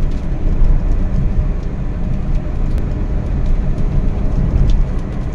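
A car being driven, heard from inside the cabin: a steady low rumble of engine and road noise, with a few faint scattered ticks.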